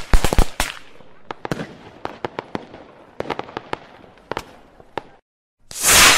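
Sound effect of an animated logo intro: a rapid crackle of sharp pops that thins out and fades over about five seconds, a brief silence, then a loud swelling burst of noise near the end.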